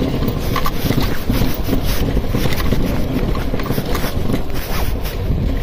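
TVS Apache RTR 200 single-cylinder motorcycle rolling down a steep, rocky dirt track with its engine running low, the bike knocking and rattling over the stones. Wind buffets the microphone.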